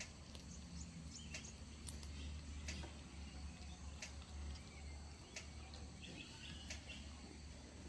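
Faint outdoor ambience: scattered sharp clicks and a short patch of high chirps about six seconds in, over a steady low rumble.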